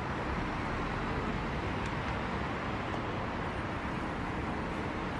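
Steady highway traffic noise from cars and trucks passing on a multi-lane road.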